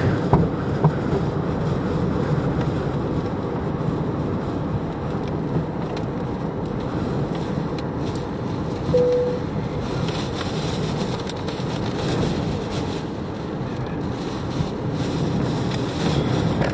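Steady road and wind noise heard inside a car driving on a highway through a storm, with scattered light ticks and one short beep about nine seconds in.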